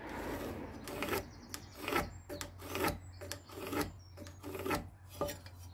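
A pencil scratching along rough-sawn timber, guided by a speed square, as a marking line is drawn: a string of short scratching strokes, about two a second.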